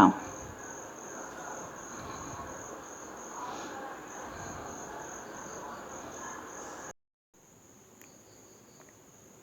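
Crickets chirping steadily in the background as a high, evenly pulsed trill, over a soft low rustle of handling. The sound drops out almost completely about seven seconds in.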